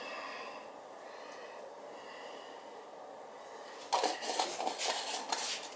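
A quiet stretch with faint breathing, then about four seconds in, a second and a half of rustling and clattering as ingredients and containers are handled over the roasting pan.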